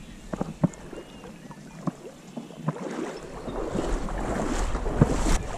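Marsh water sloshing and splashing around a hunter's waders as he wades through shallow water, with scattered small splashes at first and a denser wash with a low rumble building in the second half.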